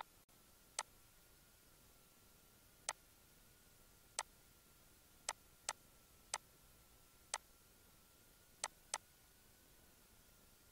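Computer mouse button clicking: about nine sharp single clicks at irregular intervals, two of them coming in quick pairs.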